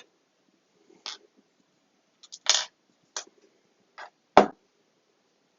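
Handling noises from putting together a flat-pack box kit: about five separate light clicks and knocks of parts being fitted, one sharp knock near the end.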